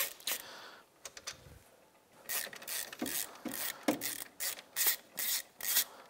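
Hand ratchet clicking as the caliper's 12 mm mounting bolts are backed out. It goes in quick strokes, about two or three a second, with a short pause about a second in.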